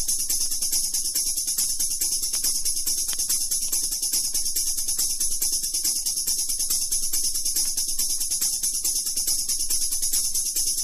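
Intro music: a steady, rapid jingling of high percussion, thin and bright, with almost no bass.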